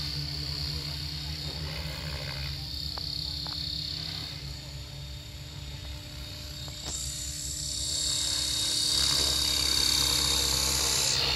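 Faint, distant hum of a radio-controlled helicopter's rotor and motor, under steady insect chirring from the grass that gets louder about seven seconds in.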